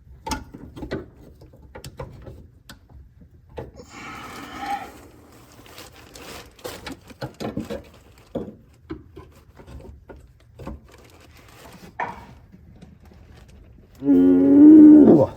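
Scattered clicks and knocks of hand tools working at a stuck fuel fitting. Near the end comes a loud, drawn-out groan of effort, the loudest sound here.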